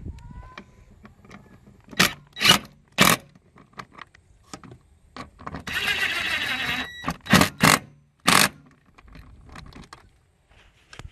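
Cordless drill with an 8mm socket tightening the small bolts of the clamp strap around a frame-mounted fuel pump. There are several short bursts of the drill, and one longer run of about a second just past the middle.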